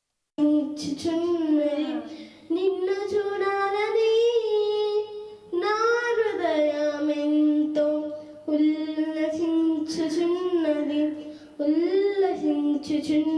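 A young girl singing a Telugu song solo into a handheld microphone, unaccompanied. She sings in long held phrases with short pauses for breath between them, starting a moment in.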